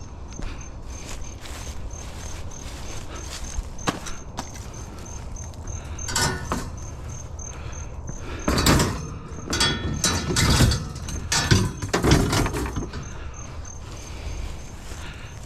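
An insect, cricket-like, chirping in a regular high pulse throughout. Over it come clattering and knocking noises of things being handled and moved, loudest in a cluster of clunks and rattles from about eight to thirteen seconds in.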